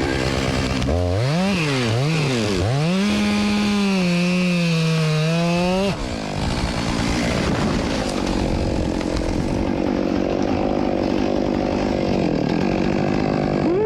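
Two-stroke chainsaw revved up and down a few times, then held at full throttle for a few seconds. About six seconds in the note drops suddenly, and the saw keeps running, likely cutting into wood, with a brief rev near the end.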